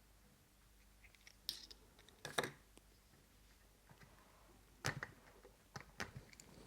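Scattered light clicks and knocks of tools and parts being handled while a small radial engine is taken apart, about five separate ones, the loudest about two and a half seconds in.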